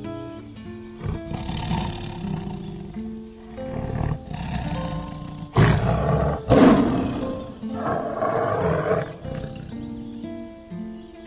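Tiger roaring and growling several times over background music with a stepped melody, the two loudest roars coming back to back about halfway through.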